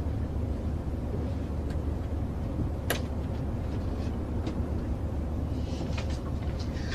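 Airliner cabin noise: the steady low drone of the engines and air, with a single sharp click about three seconds in and a few faint ticks.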